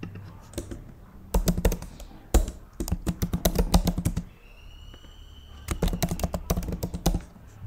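Typing on a computer keyboard: three quick runs of keystrokes, with short pauses between them, as a line of code is entered.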